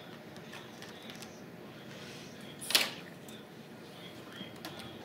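Small metal clicks and taps of orthodontic hand instruments on braces in a patient's mouth, with one short, louder burst of noise a little over halfway through.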